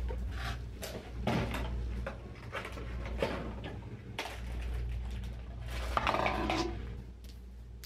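Handling noises: cardboard hair-dye boxes and their packaging rustling and knocking as they are moved about and set down, over a steady low hum.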